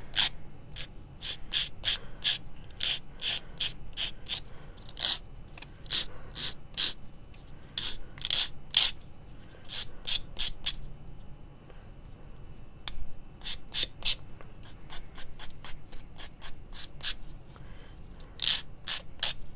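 A square sanding stick rubbing along the edge of a small wooden cut-out in quick, short strokes. The strokes come in irregular runs, with a pause of about two seconds near the middle.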